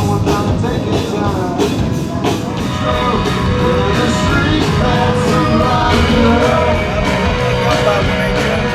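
Rock music with a singing voice over guitar and a steady drum beat.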